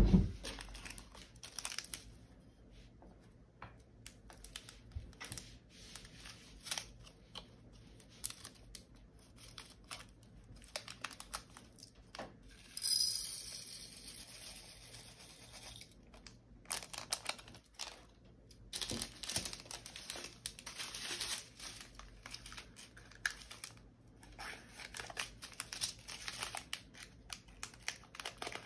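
Small plastic baggies of diamond-painting drills crinkling and tearing as they are handled and opened, with scattered light clicks. A louder rustling burst about 13 seconds in.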